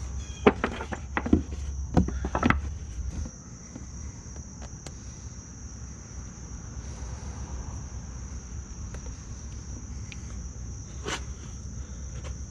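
A handful of sharp clicks and knocks from handling the oil drain tube and its fittings on a Buell X1 in the first three seconds, with one more click near the end. Under them a steady low hum and a constant high whine carry on.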